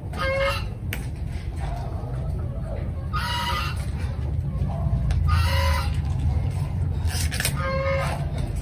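Chickens clucking: four short calls spaced a couple of seconds apart, over a low steady rumble.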